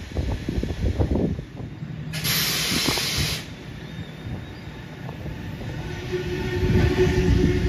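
Wind buffeting the microphone, then a sharp hiss lasting about a second, about two seconds in. From about six seconds in, an electric double-deck suburban train approaches with a rising rumble of wheels on rail and a steady motor whine.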